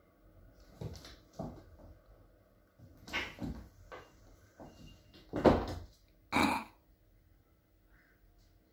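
Two cats fighting, in short, noisy bursts of hissing and growling mixed with scuffling. The loudest burst comes about five and a half seconds in, with a last one a second later.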